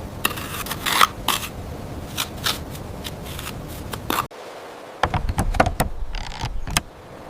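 Small hard pieces being handled and set in place in miniature building work: light clicks, taps and short scrapes, with a sudden cut a little past halfway to a denser run of clicks and knocks.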